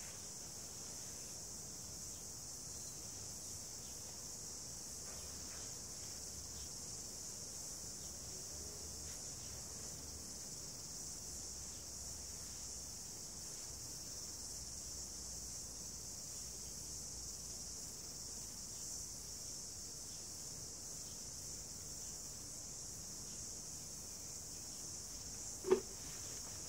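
Insects chirring in a steady high-pitched drone, with one sharp knock about a second before the end.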